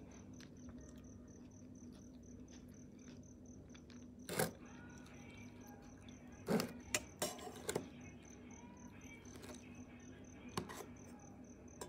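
Clicks and knocks from a phone being handled, a few at a time over a low steady hum.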